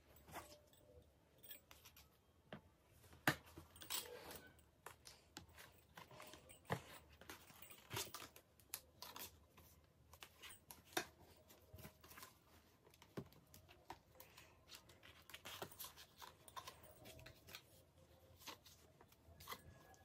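Faint, scattered clicks and knocks of hard plastic: panels and blue connectors of a flat-pack corner rack being handled and fitted together.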